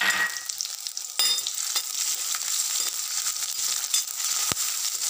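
Oil sizzling steadily in a metal kadhai as cumin seeds, chopped red chillies and sliced garlic fry for a tempering. A spoon stirs them, clicking sharply against the pan a few times.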